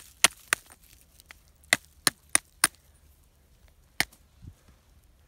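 Sharp clicks and knocks of hard debris (sticks, stones, glass and scrap) being moved by hand while digging through an old rubbish dump. There are three quick knocks at the start, four more close together around two seconds in, and a single one about four seconds in.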